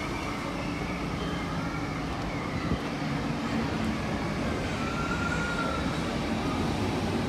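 Munich U-Bahn Type A train pulling into an underground station: a steady rumble of wheels and motors with held whining tones, growing slightly louder, and a brief higher whine about five seconds in.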